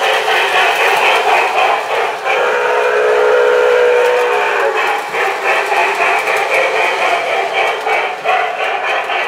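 Proto-Sound 1 sound system of an MTH Rail King O-gauge Jersey Central Camelback model steam locomotive blowing its electronic steam whistle from the onboard speaker as the engine runs. The whistle comes in several blasts, the longest and loudest from about two to five seconds in.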